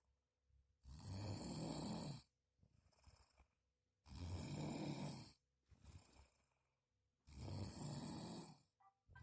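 A sleeping man snoring heavily: three loud, rasping snores about three seconds apart, with quieter breaths between them.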